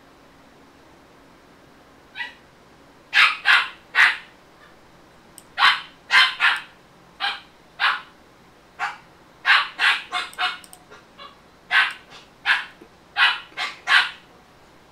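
Dog barking: about twenty sharp, high-pitched yaps in irregular bursts, starting about two seconds in.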